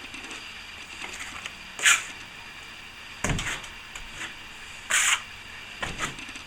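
Four short scrapes of a plastering tool working wet plaster, the two loudest about two and five seconds in.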